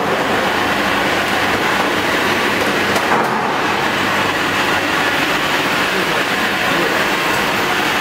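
Vacuum cleaner unit of a packing machine running with a steady, loud noise.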